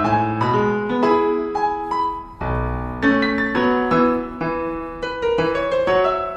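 Background piano music: a melody of separate struck notes over lower notes, with a deeper sustained note about two and a half seconds in.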